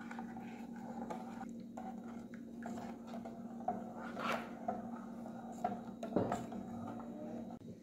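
Wooden spoon stirring a thin milk and cornstarch mixture in a metal saucepan, with soft scrapes and a couple of brief knocks against the pan, over a steady low hum.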